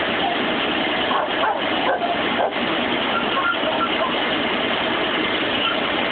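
A 2006 Ford F-150's 5.4-litre V8 running with a steady ticking, clacking noise that the owner likens to a diesel. He suspects the cam phasers and VCT solenoids, and the truck keeps logging camshaft position sensor codes.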